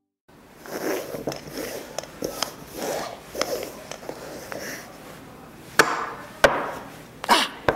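Red plastic apple-shaped trap balls being shuffled around on a tabletop by hand: a run of soft knocks and sliding, then four sharp clacks in the last two seconds as the balls are picked up and set down.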